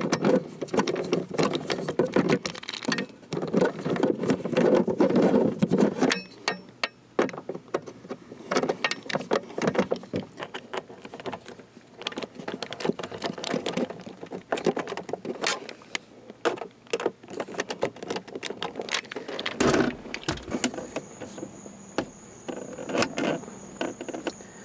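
Rapid clicking and rattling of hand work on a plastic car console lid: screws being driven to fit the hinge and the parts being handled. A thin steady high tone comes in near the end.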